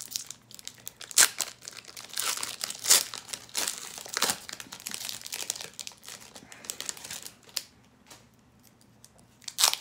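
A Pokémon TCG booster pack's foil wrapper crinkling and tearing as it is ripped open, in a run of sharp rustles. The rustling dies down near the end, then one last loud crinkle.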